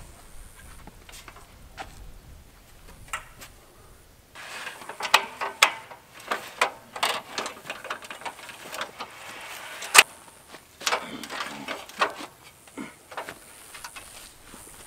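Aluminium multi-position ladder being handled and reset from an A-frame to a straight ladder: a run of metallic clicks and clatters as its hinge locks and rungs are worked, with one sharp clack about ten seconds in.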